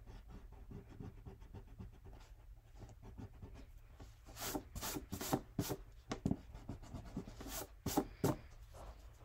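Erasing pencil lines on drawing paper, heard first as soft, quick rubbing strokes. About four seconds in comes a run of louder, sharp hand swipes that brush the eraser crumbs off the paper.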